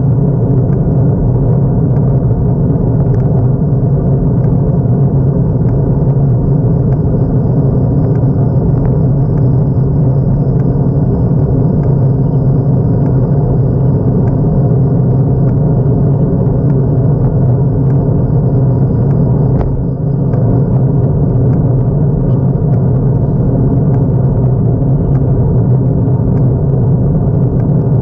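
Steady, loud wind and road noise rumbling on the microphone of a camera on a road bike's handlebars as the bike rides along, dipping briefly about twenty seconds in.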